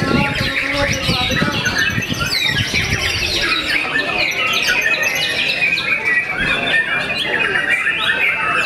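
Many caged white-rumped shamas singing at once: a dense, overlapping tangle of quick whistles, trills and chattering notes, over a low murmur of people talking.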